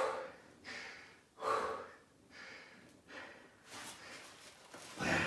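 A man breathing hard in quick, rasping puffs about every three-quarters of a second, out of breath from straining to pull a stuck pipe free. A louder rushing noise sets in near the end.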